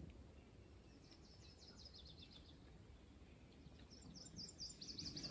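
A small songbird singing faintly over near-silent woodland: a quick trilled phrase of rapid high chirps about a second in, and another starting near the end.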